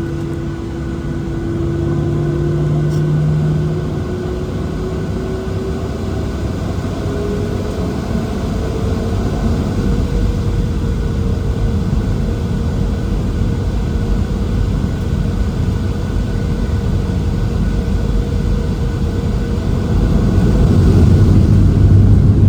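Boeing 737-700's CFM56-7B engines spooling up to takeoff thrust: a whine rising in pitch over the first ten seconds, then holding steady. Under it runs the rumble of the takeoff roll, which gets louder near the end.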